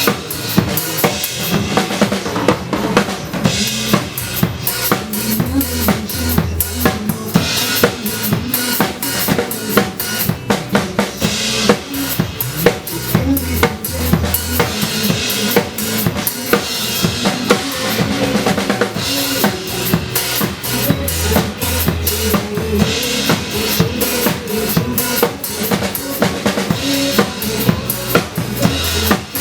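A drum kit played in a steady groove along with a pop song backing track: kick drum and snare hits with cymbals over the music.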